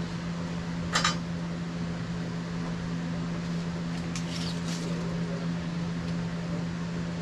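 Metal clanking on a portable sawmill's log bed: one sharp clank about a second in and a few lighter clinks around four seconds in, over a steady low engine-like drone.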